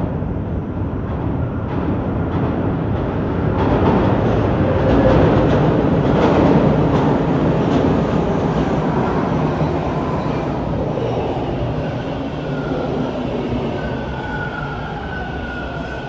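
Toronto subway Bombardier T1 train running through the station, a loud rumble of wheels on rail that swells about five seconds in and then slowly eases. Near the end the wheels begin to squeal with high, wavering tones.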